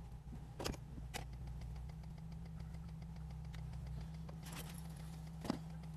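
Car engine idling, heard from inside the cabin as a steady low hum, with a few faint clicks, the loudest about a second in.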